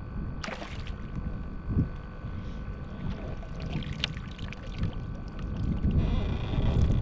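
Water sloshing around a kayak with wind on the microphone, and a splash about half a second in as a hooked fish is scooped up in a landing net at the surface. A dull knock and a light click of gear follow, and the wind grows louder near the end.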